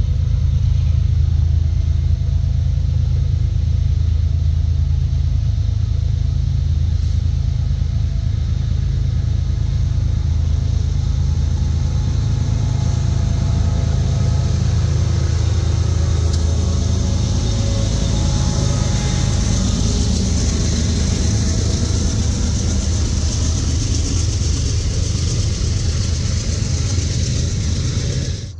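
Freight train led by two CSX diesel locomotives approaching and passing: a steady deep diesel engine rumble from the start, joined about halfway through by rising rail noise as the steel wheels of the freight cars roll and clatter past, loudest near the end.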